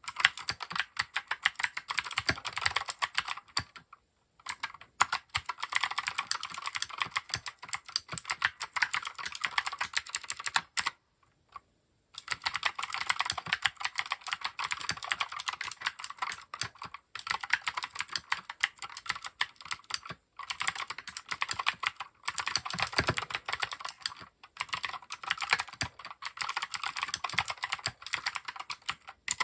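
Fast typing on a Keychron K6 mechanical keyboard fitted with OEM-profile dye-sublimated PBT keycaps: rapid runs of key clicks and clacks, broken by brief pauses about four seconds in and again near eleven seconds.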